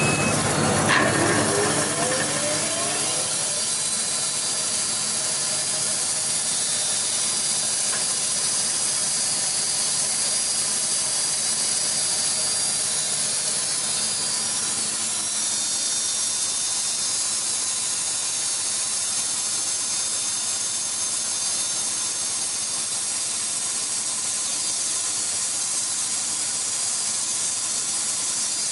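AMIX PT-100 horizontal band sawmill running idle with no log in the cut: a steady mechanical whir with a strong hiss. In the first few seconds a few rising tones are heard as the machine comes up to speed.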